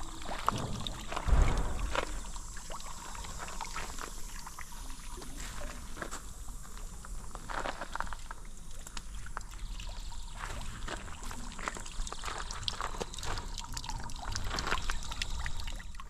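Water trickling and splashing steadily from a stone fountain, with scattered small clicks and one low thump about a second in.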